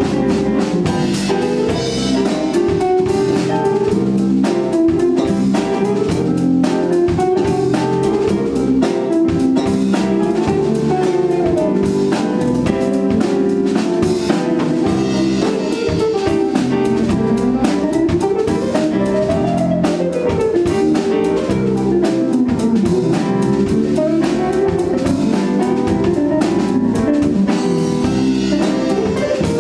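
Small jazz band playing live: hollow-body electric guitar, electric keyboard, electric bass and drum kit, with winding melodic lines over a steady groove.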